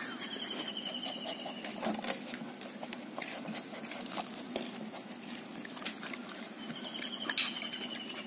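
Pit bull puppies crunching dry kibble from a steel bowl: an irregular run of quick crunches and clicks. A faint high trilling sounds twice, near the start and near the end.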